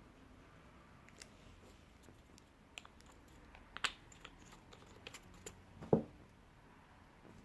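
Scattered light clicks and taps of small craft items being handled, a fabric glue bottle and tin lid among them, with two louder knocks about four and six seconds in.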